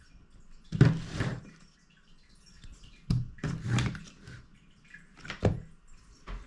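Handling noise as a laptop and a magnetic precision screwdriver are picked up, shifted and set down on a desk: three separate bursts of knocks and clatter, about a second in, around three to four seconds in, and again briefly near the end.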